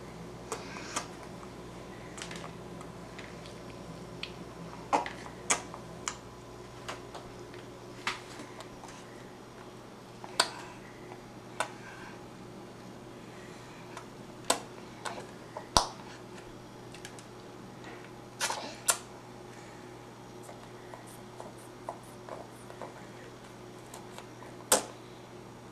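A crunchy snack being chewed: sharp crunches and clicks at irregular intervals, some in quick pairs, a few of them loud.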